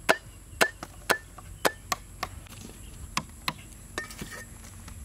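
A cleaver chopping through corn cobs on a chopping board: five sharp strikes about half a second apart, stopping after about two seconds. A few lighter snips of kitchen scissors cutting prawns follow near the end.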